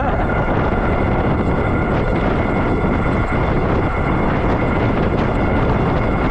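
Steady wind rush over the camera microphone while riding an electric bike, with a faint high whine that holds one pitch.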